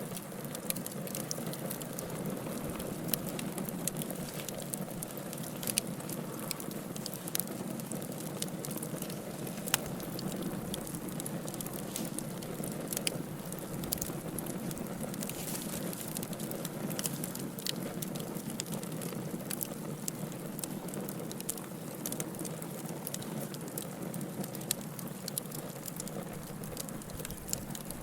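Fire burning in a fireplace: a steady low hiss of flame with frequent small crackles and sharp pops, one louder pop about ten seconds in.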